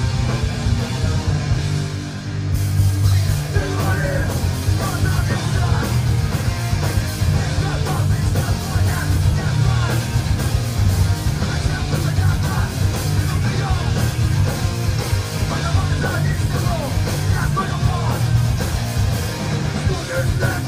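Punk rock music with vocals, loud and continuous; the sound gets fuller and brighter about two and a half seconds in.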